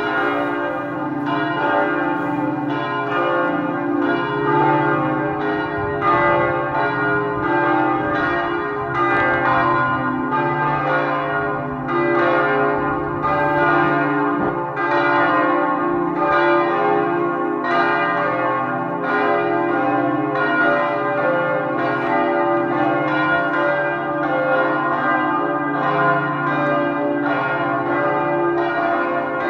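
Church bells pealing: several bells struck in a continuous, even run, a little more than one stroke a second, each stroke ringing on into the next.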